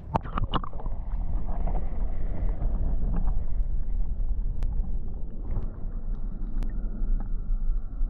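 Wind buffeting the microphone outdoors, a loud, steady low rumble, with a few sharp knocks in the first half-second.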